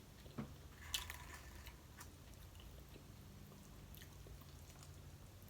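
Faint chewing and wet mouth sounds of someone eating, with a couple of short soft smacks in the first second, over a low steady hum.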